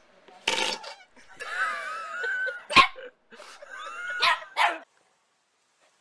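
A small white terrier barking and growling in several short bursts, with bending, whining cries between them.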